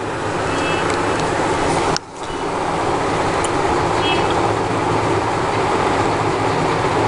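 Steady loud hiss with a low hum underneath. It cuts out abruptly about two seconds in and builds back up over about a second.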